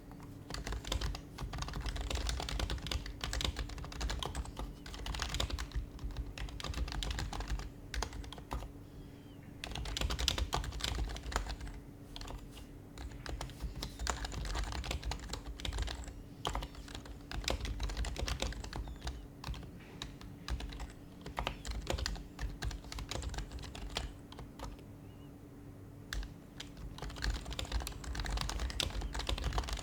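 Fast typing on an HHKB Professional HYBRID Type-S keyboard, its silenced Topre switches giving soft, muffled keystrokes in bursts with brief pauses between them. A faint steady hum runs under the typing.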